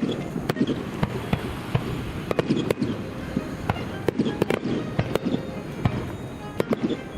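Fireworks going off in rapid, irregular succession: many sharp bangs and cracks, several a second, over a steady background din.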